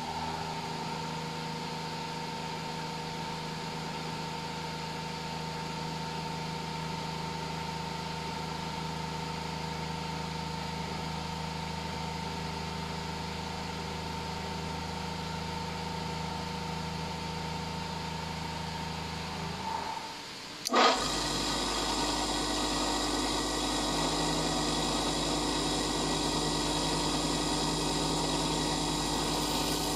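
Bench grinder running steadily with a hum. About two-thirds of the way through, after a sudden sharp click, it turns louder and brighter while a twist drill bit is held to the grinding wheel for sharpening.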